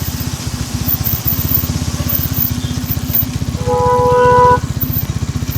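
Hero Xtreme 160R 4V's single-cylinder engine running steadily under way, with even, rapid firing pulses. A horn sounds once for about a second, a little past the middle.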